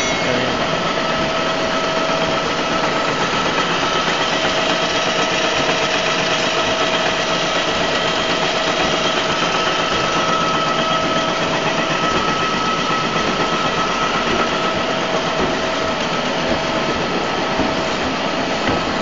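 Steady running noise of machine-shop machinery, with a constant mid-pitched whine on top that fades in and out.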